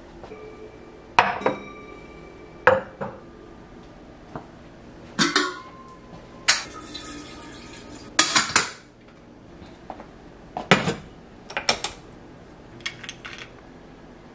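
Kitchen dishes, mugs and glass jars knocking and clinking as they are handled and set down on a counter: about a dozen separate knocks, some ringing briefly. A rushing hiss of about a second and a half sounds a little past the middle.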